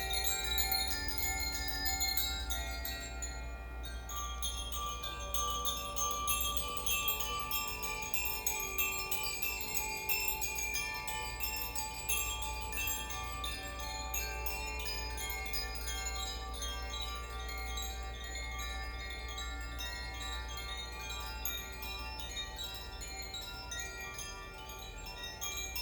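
Koshi chimes played by hand: the clapper inside each swirled chime strikes its tuned metal rods in a constant stream of light strikes, the tones overlapping and ringing on.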